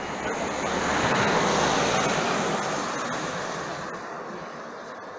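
A vehicle passing by on the street: tyre and engine noise that swells, peaks about a second and a half in, and fades away.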